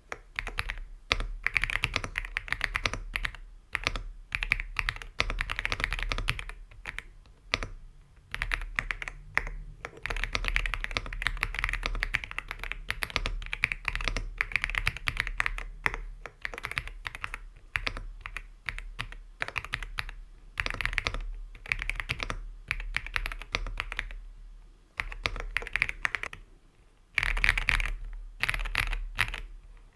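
Typing on an Aula F75 mechanical keyboard with TTC Crescent tactile switches: quick runs of keystrokes in bursts of a few seconds, broken by brief pauses.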